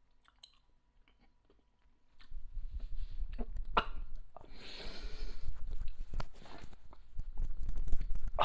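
Faint chewing at first. From about two seconds in come sharp, irregular huffs, gasps and blown-out breaths from a mouth burning on a Carolina-pepper jelly bean, over the rumble and rustle of a clip-on microphone as he moves and fans his mouth.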